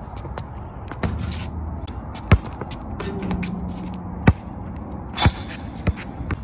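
Basketball bouncing and striking hard on an outdoor concrete court: a handful of separate, sharp smacks a second or so apart.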